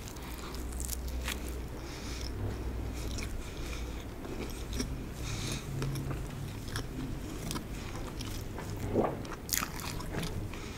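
Close-miked chewing of a bite of margherita pizza: soft crunches and crackles of the crust, with wet mouth clicks all through. There is a louder mouth sound about nine seconds in.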